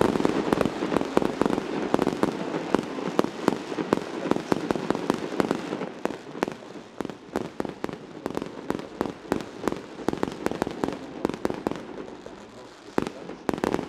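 Mascletà firecrackers by Pirotecnia Hermanos Sirvent going off in a rapid, dense string of cracks. About halfway through the string thins to separate bangs, with two louder bangs near the end.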